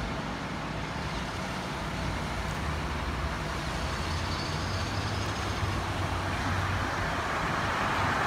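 Road traffic at an intersection: car and truck engines running with tyres hissing on wet pavement, getting louder toward the end as a vehicle comes close.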